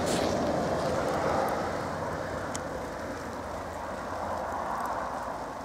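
Steady rushing noise of a car driving on a snow-covered highway, with tyre and wind noise heard from inside the moving vehicle.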